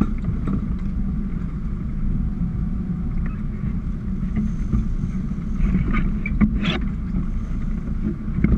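Sportfishing boat under way: a steady low rumble of the motor and water along the hull, with wind on the microphone. A short knock about two-thirds of the way through.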